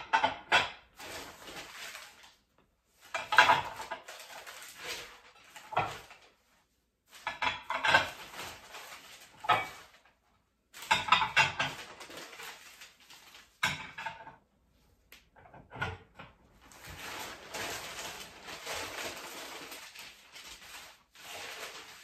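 Glass dishes clinking and knocking together as milk glass plates are handled and stacked on a table, in separate bursts with short pauses between. Newspaper wrapping rustles and crinkles, a longer unbroken stretch of it in the last few seconds.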